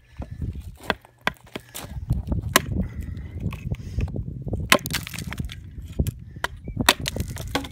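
A hatchet hand-forged from half-inch steel plate chopping into a log standing on a chopping block. It makes a string of sharp, irregularly spaced chops as small chunks of wood split off.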